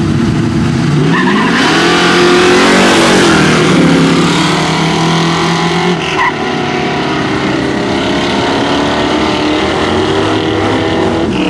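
Two street cars launching off a drag strip start line. Their engines rev hard with a rising pitch and a loud rush of noise about two to four seconds in, the pitch dipping once at a gear change. The engines then keep running at speed down the track.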